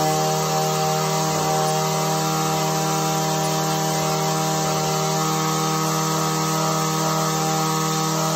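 Echo SRM-225 string trimmer's two-stroke engine idling steadily, a buzzing hum, shortly after a cold start.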